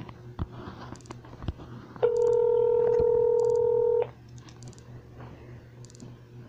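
Telephone ringback tone: one steady two-second ring about two seconds in, the sign that the dialled number is ringing at the other end. Light handling clicks and taps around it.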